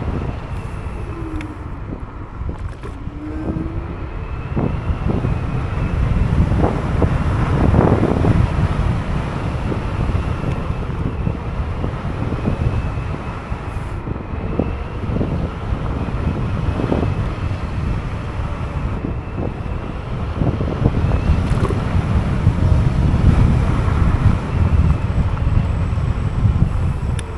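Wind buffeting the microphone and road rumble from a Teverun Fighter 11 electric scooter riding along, swelling louder at times.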